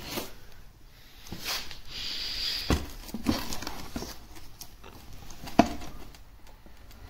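Handling noise from a plastic-wrapped LED fog light being lifted out of its cardboard box: crinkling plastic film and scattered light knocks of the plastic housing, the sharpest about five and a half seconds in.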